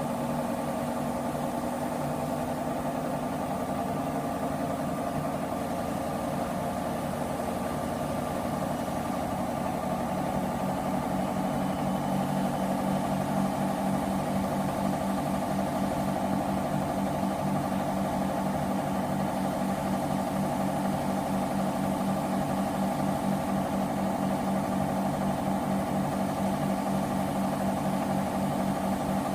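Washing machine on its spin cycle: a steady motor and drum hum with a pulsing low tone that gets a little louder about ten seconds in.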